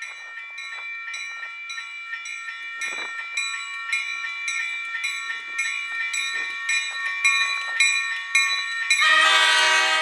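Railroad grade-crossing bell ringing steadily at about three strikes a second while a train approaches, getting gradually louder. About nine seconds in, the locomotive's multi-chime air horn sounds, much louder than the bell.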